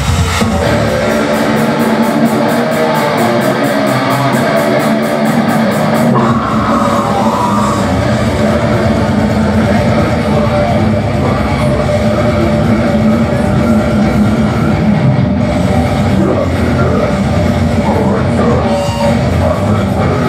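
Death metal band playing live at full volume: distorted electric guitars over drums. A fast, even beat runs through the first six seconds, then the low end fills in and the full band plays on.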